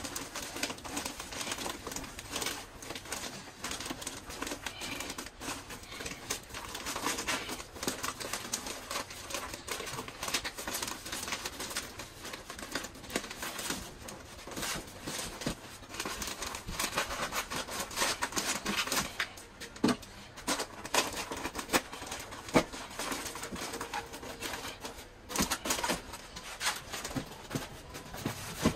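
Paper-faced fibreglass insulation batts being pulled out of a wall cavity. The kraft facing crinkles and tears in a dense, continuous run of rustles and crackles.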